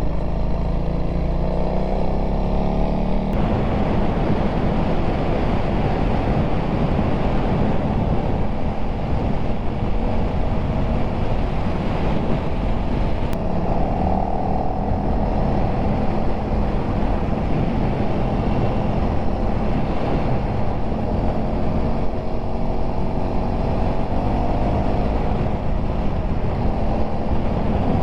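Honda CRF300L's single-cylinder four-stroke engine rising in pitch as the dirt bike accelerates. About three seconds in it settles to a steady cruise under a thick rush of wind noise.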